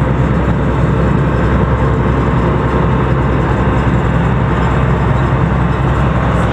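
Engine running steadily, a continuous low rumble with a wash of noise, as heard on board the vehicle.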